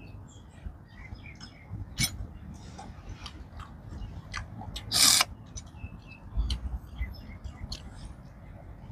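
A person sucking a freshwater snail out of its shell with one sharp slurp about five seconds in, among light clicks of snail shells and chewing.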